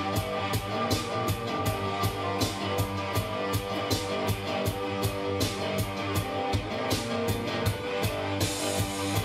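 Electro-indie rock song with a steady, evenly repeating drum beat under sustained guitar and synth parts.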